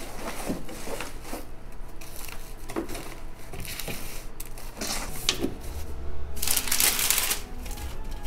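Rustling and light knocks as items and a cardboard box are handled, then brown packing tape is pulled from a dispenser and run across the box for about a second near the end, sealing it.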